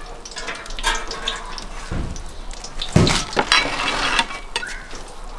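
Hot sunflower oil crackling and sizzling in a kazan after a batch of fries. Two dull knocks come about two and three seconds in.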